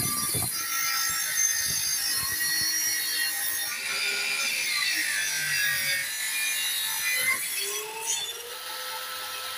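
Bench-mounted circular saw (table saw) ripping a wooden plank lengthwise, a steady whining cut. Its pitch sags about four seconds in and climbs again near the end, when the sound gets quieter.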